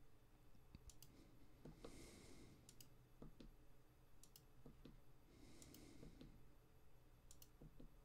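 Faint, scattered clicks of computer controls being pressed, some in quick pairs, in an otherwise near-silent room.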